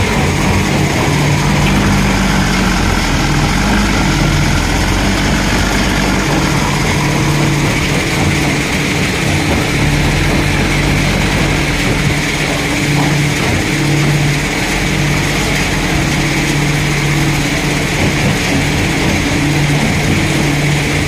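JCB 3DX backhoe loader's diesel engine running under hydraulic load as the front loader bucket scoops sand and lifts it to the truck. The engine note rises and falls every few seconds as the work changes.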